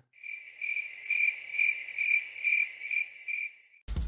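Cricket chirping sound effect: one high, steady chirp that pulses a little over twice a second, then starts and stops abruptly. It is the stock comedy cue for an awkward silence.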